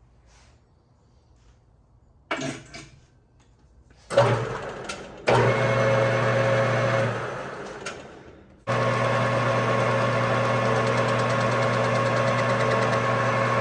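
Metal lathe motor switched on and running with a steady hum, then coasting down and switched on again to run steadily. A short clatter comes just before it first starts.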